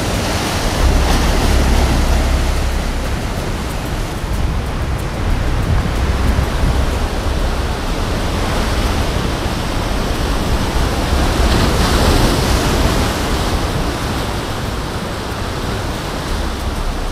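Heavy ocean surf breaking and washing over rocks, a steady rushing sound that swells louder about a second in and again around twelve seconds, with wind rumbling on the microphone.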